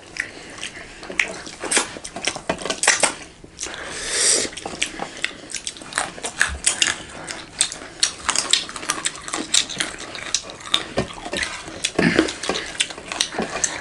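Close-up eating sounds: chewing and wet mouth clicks, with fingers mixing rice on metal plates, a dense string of short sharp clicks.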